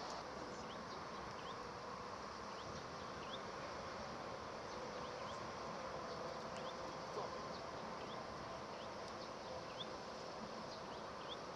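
Faint insect buzzing and short high chirps over a steady outdoor hiss.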